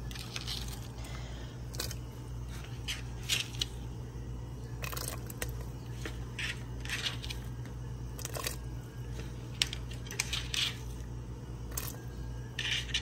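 Diced white onion dropped by the handful into a steel pot of broth: about a dozen short splashes and knocks at irregular intervals, over a steady low hum.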